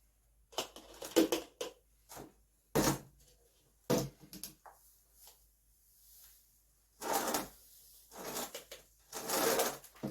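Spoon and glass-jar handling while diced pear and sugar are layered in a jar. There are several sharp knocks and clicks in the first half, then three short rustling scoops or pours near the end.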